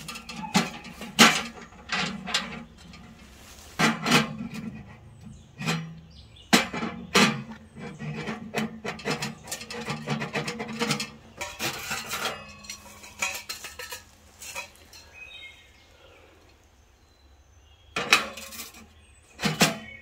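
Stainless steel wood-stove parts clanking as the chimney pipe sections are fitted together on the stove and the folding wire side shelves are swung out: many sharp metallic knocks and clinks, a quieter spell near the end, then a few more clanks.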